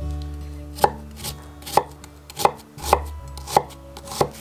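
Large kitchen knife chopping an onion on a wooden cutting board: about seven sharp knocks of the blade on the board, a little over half a second apart.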